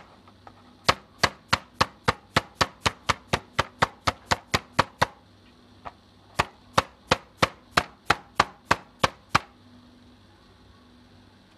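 Spiked meat-tenderizer mallet pounding raw chicken in quick, even strikes, about four a second. The strikes come in two runs with a pause of about a second and a half between them, and stop a little past two-thirds of the way through.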